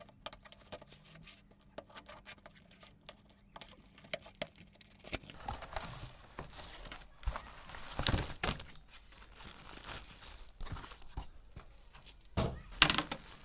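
A cardboard keyboard box being opened and the keyboard's polythene wrapping handled: crinkling and rustling with small clicks, sparse at first and busier from about five seconds in.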